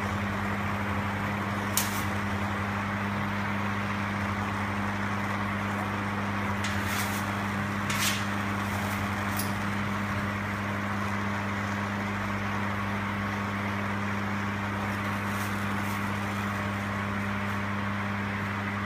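A steady hum with a constant hiss, and a few light clicks about two, seven and eight seconds in.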